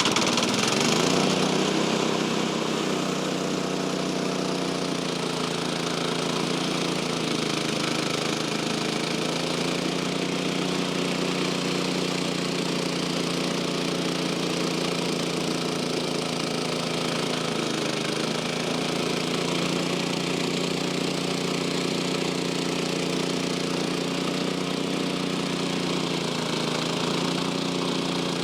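Portable band sawmill's small gasoline engine revving up in the first second, then running steadily under load as a new Cook's 10-degree band blade cuts lengthwise through a pine log, with a steady hiss from the blade in the wood.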